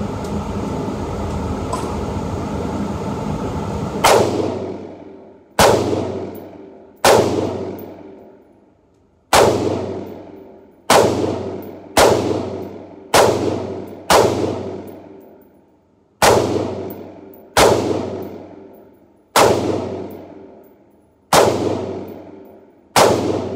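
Springfield Armory Saint Edge PDW AR pistol firing .223 rounds semi-automatically in an indoor range: thirteen single shots at a slow, deliberate pace, one to two seconds apart, each ringing and echoing off the range for about a second. A steady ventilation hum fills the first four seconds, before the first shot.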